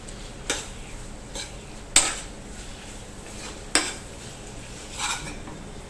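A spatula scraping and knocking against a stainless steel pan while stirring prawns through a thick ghee roast masala: four separate short scrapes, the sharpest about two seconds in.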